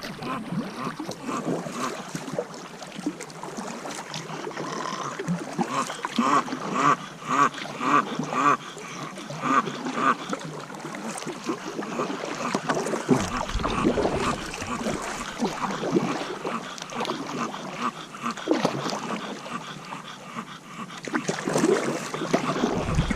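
A bulldog whining and whimpering in a run of short, pitched cries, about two a second at their steadiest.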